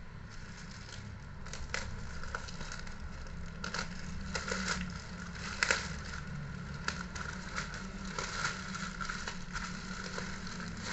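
Plastic packaging crinkling and rustling as a taped black plastic shipping bag is pulled open by hand, in irregular crackles, loudest about halfway through.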